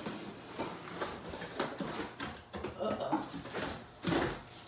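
Cardboard and packing material crackling and scraping in short, irregular bursts, with scattered light knocks, as a dog tears at a cardboard box flap.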